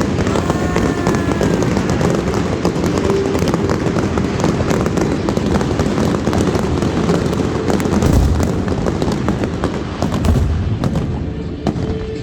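Fireworks display: continuous dense crackling and popping, with two deep booms about eight and ten seconds in.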